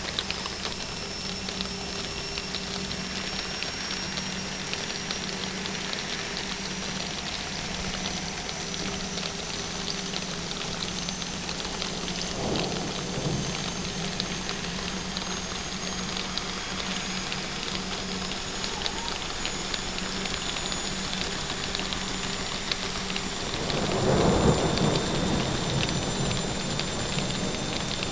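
Steady heavy rain falling in a thunderstorm, with thunder rumbling twice: a short, softer rumble about halfway through and a louder, longer one near the end.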